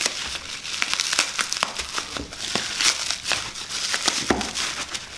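Packaging crinkling and tearing in many short, scratchy crackles as it is picked and ripped open with a fishing hook.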